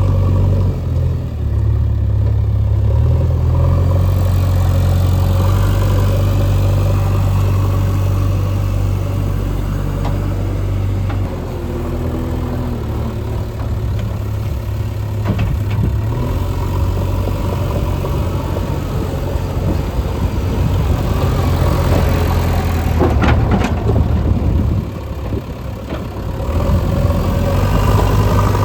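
Diesel engine of heavy construction machinery running, its speed and load shifting several times, with a few short clanks a little past two-thirds of the way through.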